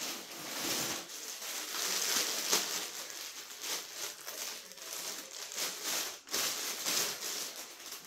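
Thin plastic packaging bags crinkling irregularly as clothes are handled and pulled out of a clear plastic bag.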